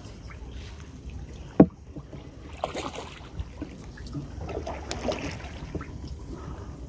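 Low steady rumble and water noise aboard a wooden river fishing boat while a net is being set, with one sharp knock about a second and a half in.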